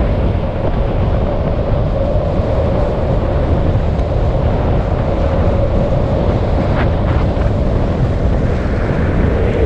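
Wind rushing over an action camera's microphone at downhill longboarding speed, with the steady roll of longboard wheels on asphalt underneath.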